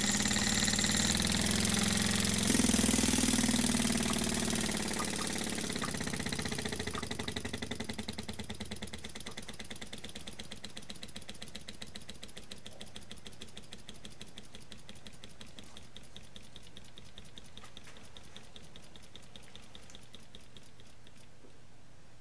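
Small scratch-built air-powered wobbler (oscillating-cylinder) steam engine running on compressed air, with a fast, even chuffing beat of exhausting air and its moving parts clattering. It gets gradually quieter over the stretch.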